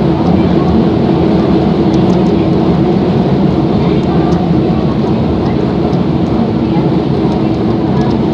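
Running noise inside a Kobe Municipal Subway 3000-series car with a Hitachi GTO inverter: a dense rumble of the train under way, with a steady hum held at one pitch throughout.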